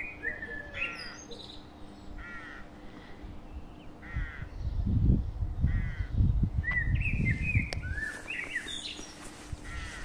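A crow cawing repeatedly, a harsh call about every second and a half, with small birds chirping around it. A low rumble rises through the middle.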